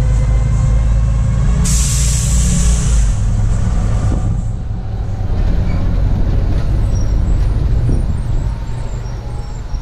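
Open-air trolley bus running, heard from aboard, with a steady low engine and road sound. Just under two seconds in, a loud air-brake hiss starts suddenly and fades out over about three seconds.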